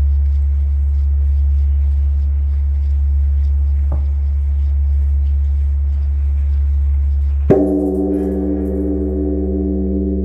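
Large Korean bronze temple bell (beomjong) tolling for the evening service: the deep hum of the previous stroke carries on, and about three quarters of the way through the bell is struck again with its wooden striking log, ringing out with many overtones over the hum.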